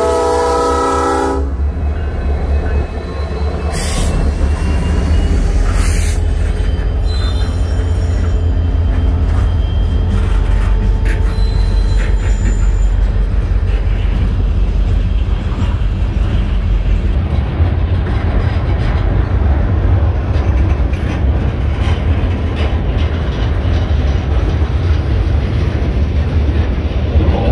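A Norfolk Southern diesel locomotive's horn chord cuts off about a second and a half in. Then a loaded freight train rolls past close by: a steady low rumble of wheels on rail with clattering cars, and a few thin wheel squeals in the first several seconds.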